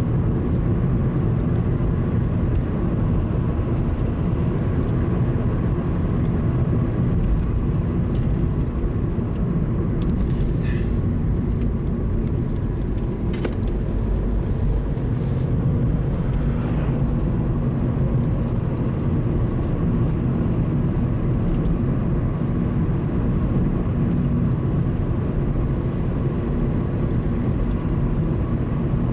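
A car driving at a steady speed, its engine and tyre noise running evenly.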